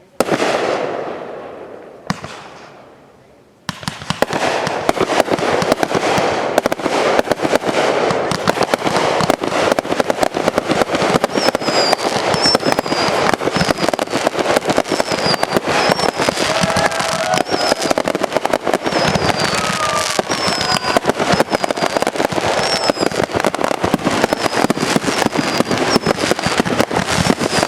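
Fireworks: two single bangs, each with a fading rumble, then from about four seconds in a dense, continuous barrage of rapid bangs and crackling, the finale of the display.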